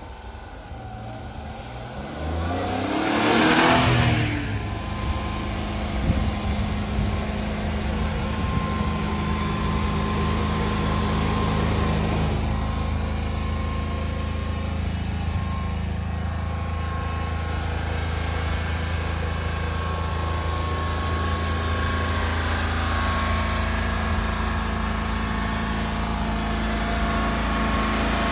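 1995 Honda Acty mini truck's small three-cylinder petrol engine revving up and back down about three seconds in, then idling steadily.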